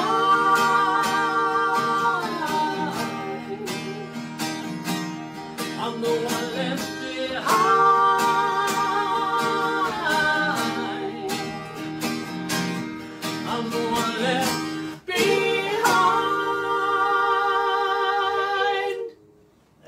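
Acoustic guitar strummed under singing: the song's closing passage, with three long held sung notes with vibrato. The music stops suddenly about a second before the end.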